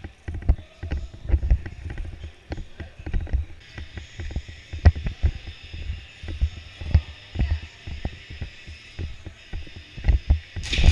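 Irregular low thumps and knocks with scattered sharp clicks, the movement noise of an airsoft player on the move. A steady hiss comes in about four seconds in, and a loud noisy burst starts near the end.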